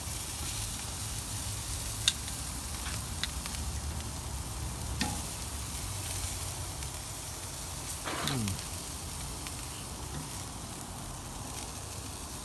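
Chicken wings and beef brisket sizzling on a wood-fired barbecue grill, a steady hiss. A few sharp clicks, the loudest about two seconds in, and a brief falling tone around eight seconds.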